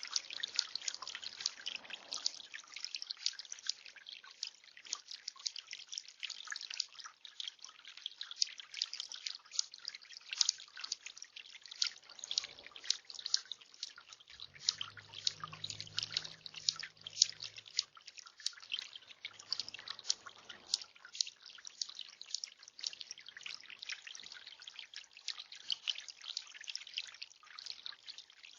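Water trickling and dripping in a tiered bird bath fountain: a quick, irregular patter of drips and small splashes.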